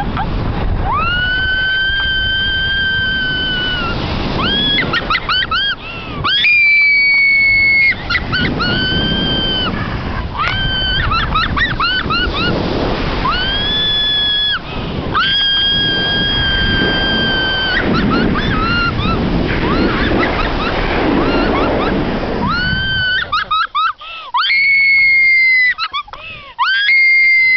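A person screaming during paragliding wingovers: a string of long, high held screams with shorter squeals between them, over heavy wind rushing across the microphone.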